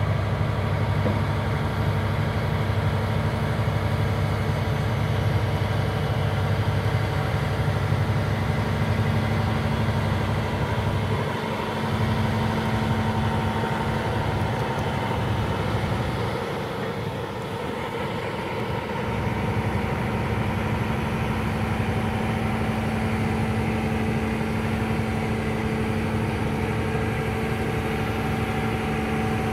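Diesel engine of a Cat hydraulic excavator running steadily while it lifts a pipe, with a low hum that thins out briefly about halfway through.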